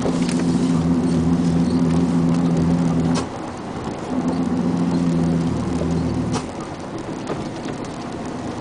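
Truck engine pulling along a gravel road, with tyres crunching on the gravel. The steady engine hum drops away about three seconds in, comes back a second later, and falls off again past six seconds, as the throttle is eased.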